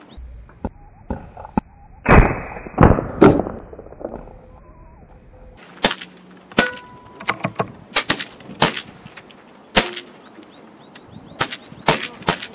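Air rifle shots on a range: a dozen or so sharp, irregular cracks from nearby shooters firing. These come after a muffled stretch with three loud thumps about two to three seconds in.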